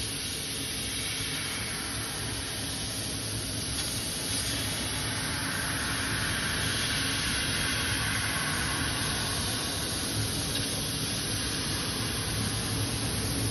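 CNC fiber laser cutting a 4 mm zinc sheet: a steady hiss from the cutting head's gas jet and the cut, a little louder from about four seconds in.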